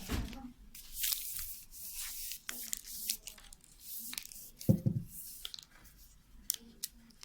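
Peeling and tearing noises from work on a broom handle, with scattered clicks and one dull thump about five seconds in.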